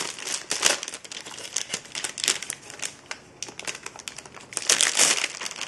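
Clear plastic bag crinkling and rustling as a device is pulled out of it, in irregular crackles with a louder burst about five seconds in.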